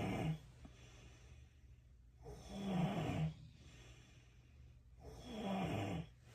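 A person snoring in their sleep: two full snores about two and a half seconds apart, each lasting about a second and falling slightly in pitch, with the end of another right at the start.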